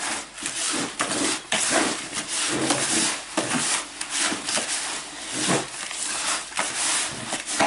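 A hand kneading and mixing damp breadcrumb-and-sweetcorn groundbait in a plastic bucket. It makes an irregular rustling, scraping stroke about twice a second.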